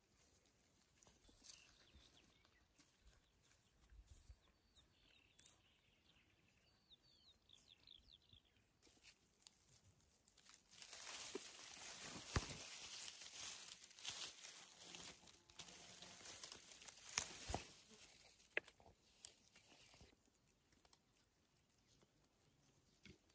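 Faint outdoor ambience with scattered rustling and light clicks, busier and louder for several seconds in the middle.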